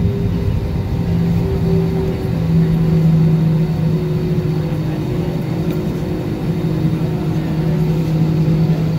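Airbus A320neo jet engines running at low power as the airliner taxis, heard inside the cabin: a steady hum over a low rumble.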